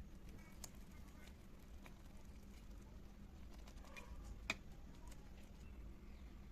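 Faint, scattered light clicks and taps, with one sharper click about four and a half seconds in, over a low steady hum.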